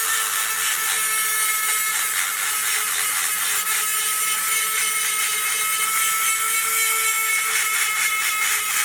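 Angle grinder grinding metal: a steady, high-pitched whine over a dense hiss, running without a break.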